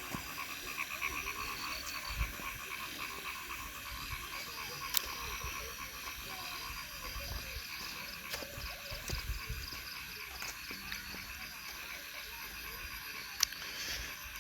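Frogs calling steadily in a chorus of fast, pulsing croaks, with two sharp clicks, one about five seconds in and one near the end.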